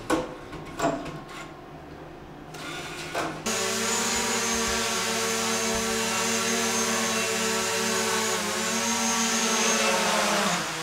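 Mechanical clicks and a short whirr from a cash machine, then a DJI Mavic Pro quadcopter hovering: the steady whine of its four propellers and motors, dipping in pitch briefly near the end.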